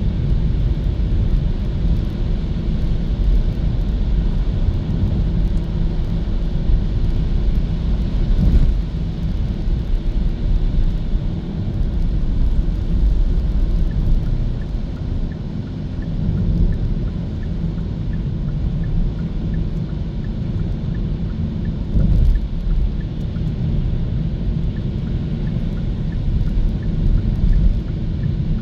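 Steady low rumble of road and tyre noise from a Hyundai Kona EV driving along, with no engine sound, only the electric car's rolling noise. Two brief thumps stand out, about eight seconds in and again about twenty-two seconds in.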